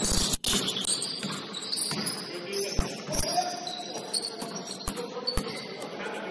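A basketball bouncing on a gym floor a few times at irregular intervals, with short high-pitched sneaker squeaks from players moving on the court.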